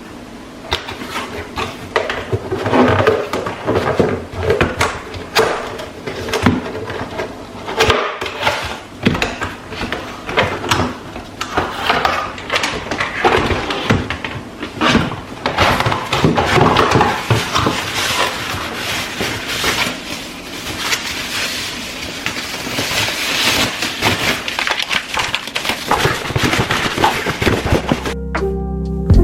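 A dense, irregular run of small clicks, taps and light clatters of hard objects being handled up close.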